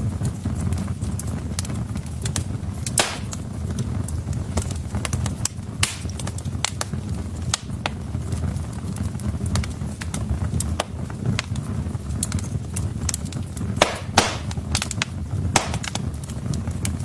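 Wood fire burning in a fireplace: a steady low rumble of flames with irregular crackles and pops from the burning logs, a few louder pops about three seconds in and again around fourteen seconds.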